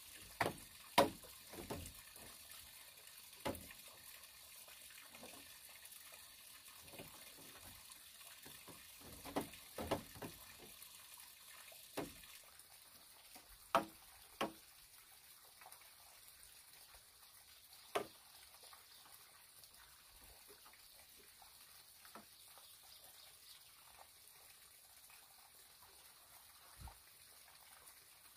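Scattered sharp, hollow knocks of bamboo poles and strips being handled and laid against a bamboo roof frame. The knocks come close together in the first half and more sparsely later, over a steady faint hiss.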